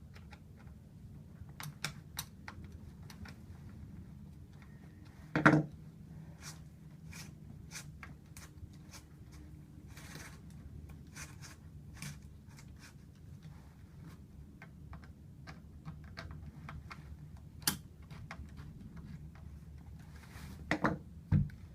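Light clicking and ticking of a saw chain and hand tools being worked on a bench as the chain is lined up on the guide bar and tensioned, with a louder knock about five seconds in and a few more near the end.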